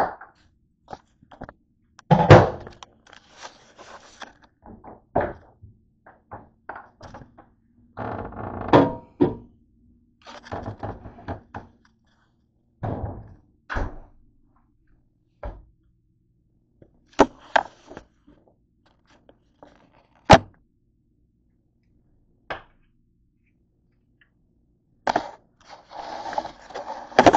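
Irregular thunks and knocks of household objects being picked up, handled and set down on a kitchen counter, with short spells of rustling and clatter between them.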